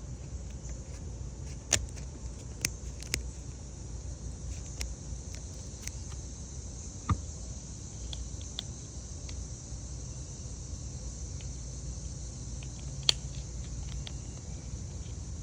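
A slap bracelet being taken apart by hand: scattered sharp clicks and snaps, the loudest about 2 s, 7 s and 13 s in, over a steady low rumble and hiss.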